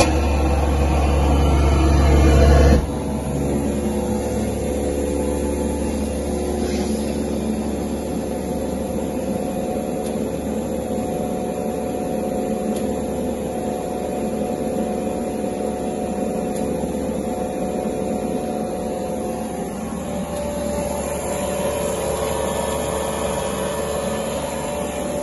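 Rietschle vacuum pump of a VC999 K6 chamber vacuum packaging machine running, pumping down the chamber with the lid closed. For about the first three seconds a deep hum grows louder, then it drops suddenly to a steady running sound.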